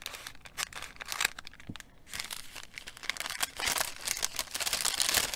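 Small kraft paper bag crinkling and rustling as it is pulled open and handled, the crackle growing busier and louder after about two seconds.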